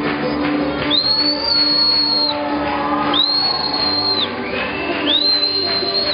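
Three long, high whistled tones, each sliding up quickly and then held for about a second, over band music.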